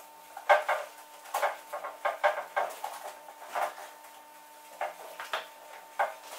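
Antistatic cloth in a gloved hand wiping a sanded Audi A6 C6 door panel before painting, in short irregular rubbing strokes. A faint steady hum runs underneath.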